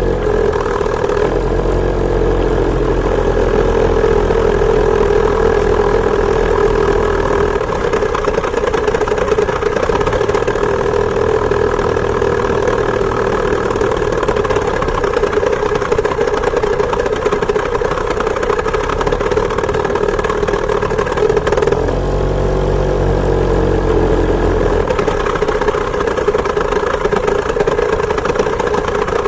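Two-stroke chainsaw engine driving a homemade moped, running steadily under way. Its pitch dips briefly near the start and again about three-quarters of the way through, then comes back up.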